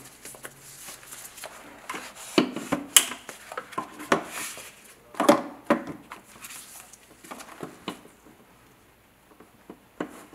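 Handling noise of a metal robot leg being fitted to the torso: irregular knocks, clicks and scrapes as the leg is slid along its dowel pins and pushed home onto its connector, with rustling of gloved hands. The knocks cluster in the middle and grow sparse near the end.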